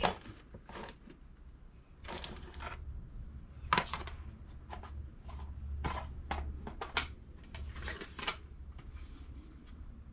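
Scattered light knocks, clicks and rustles of hands handling shotshell reloading components and tools, with a low hum from about two seconds in until about eight seconds.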